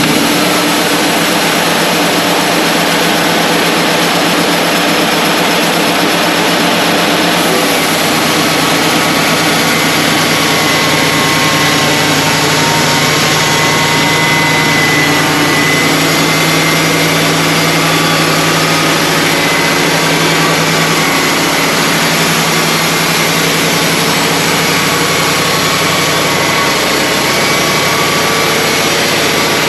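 Wood-Mizer LT35 portable sawmill running steadily and loudly, a constant machine drone with no breaks.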